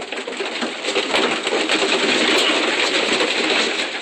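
Racing pigeons flapping their wings in a rapid, dense clatter that holds steady throughout.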